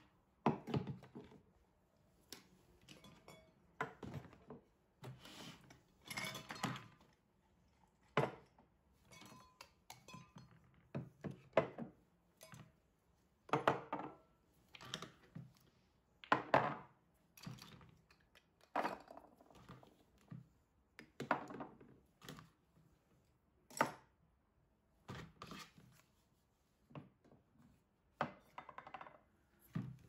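Cosmetic bottles and jars being picked up and set down on a vanity table: irregular knocks and clinks, a few every couple of seconds, with soft rustling between them.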